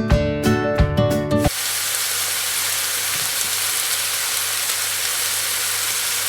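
A stretch of acoustic guitar music cuts off about a second and a half in, giving way to salmon pieces frying in hot oil with spices in a pan: a steady sizzle.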